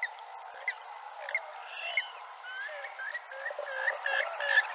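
Wetland animal chorus: scattered bird chirps and whistles, joined from about halfway by a steady run of repeated calls, about three a second.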